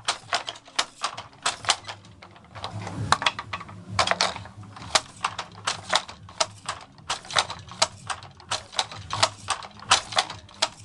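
Wooden fly-shuttle handloom clacking in a fast, steady rhythm of about three sharp clacks a second as the shuttle is thrown and the beater knocks the weft home, with a brief pause about two seconds in.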